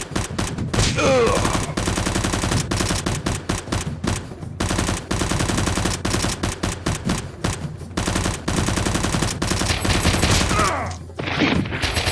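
Rapid automatic gunfire sound effects, shot after shot in quick succession. There is a brief break about four and a half seconds in and another pause near the end.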